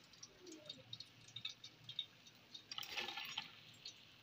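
Faint, scattered crackling and ticking of hot cooking oil, with a brief rustling noise about three seconds in.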